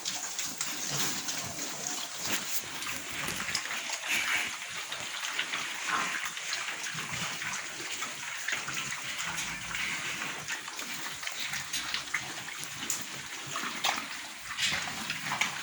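Steady wet splashing and sloshing in a pig pen, mixed with occasional sounds from the pigs.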